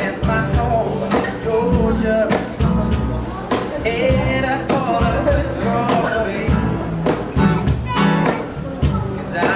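Acoustic street band playing: a cajon keeps a steady beat under an acoustic guitar and an upright double bass.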